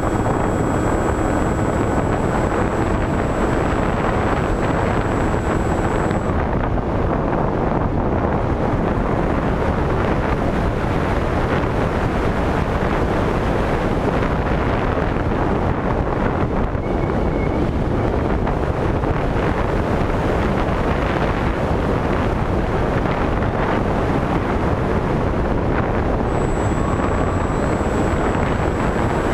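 Steady rush of airflow over the onboard camera's microphone as the Skywalker 1900 RC plane flies. A thin high whine from its electric motor is heard at the start, drops out about six seconds in and returns near the end.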